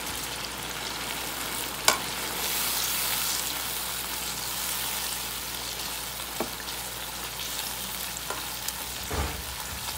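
Chicken pieces sizzling in oil and sauce in a nonstick wok as a silicone spatula stirs them, a steady frying hiss. A sharp knock about two seconds in, a few lighter knocks later and a duller thump near the end.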